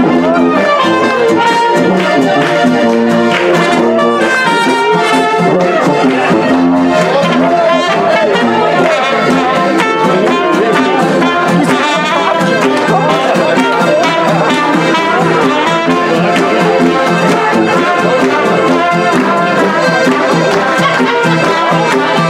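Live Alpine folk music: a trumpet and a tuba playing with several Styrian diatonic button accordions (Steirische Harmonika), with guests clapping along.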